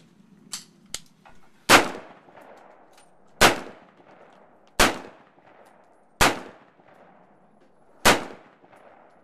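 LWRC M6A2 gas-piston 5.56/.223 rifle fired five times in slow semi-automatic, one sharp shot every second and a half or so, each with a short echo trailing off. Two fainter shots sound about half a second and a second in.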